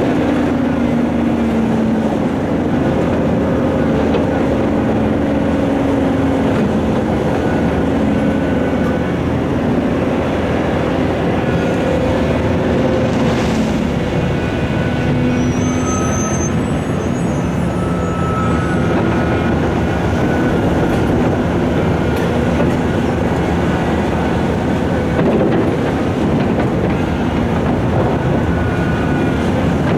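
Heavy diesel earthmoving machinery running steadily under load, the engine note shifting up and down in pitch, with a few brief high metallic squeals about halfway through.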